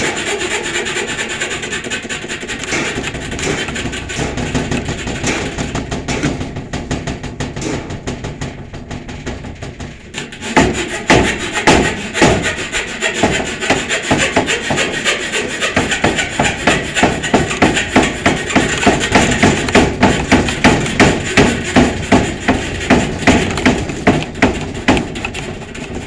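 Saw cutting through wood: an unbroken rasping at first, then from about ten seconds in, louder regular back-and-forth strokes about two a second.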